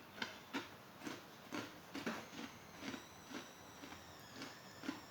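Close-up chewing of a mouthful of food, with wet mouth clicks and lip smacks about twice a second.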